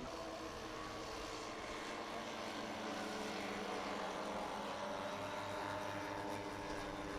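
Electric radio-controlled scale model aircraft flying, its propellers and motors giving a steady hum of several tones that drift slightly in pitch.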